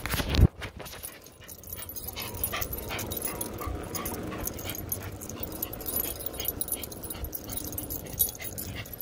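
Dogs whining and panting as they run on leashes, over a steady rush of wind and tyre noise from a moving Gotway MSX electric unicycle, with a loud bump right at the start.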